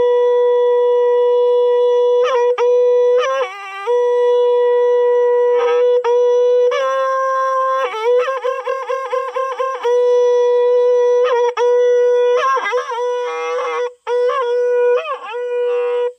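Tori, a Bastar folk wind instrument with a wooden mouthpiece and metal bell, being played: a loud, steady held note broken by quick ornamental runs, a stretch of rapid repeated notes and short breaks between phrases. It cuts off at the very end.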